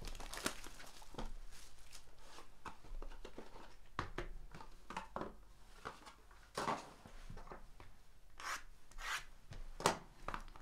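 Trading cards and cardboard card boxes being handled: cards rubbing and sliding against each other, with scattered light taps and rustles.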